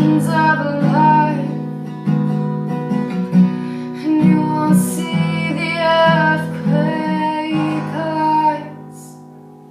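Acoustic guitar strummed under a woman's singing voice, the final chord ringing out and fading away near the end.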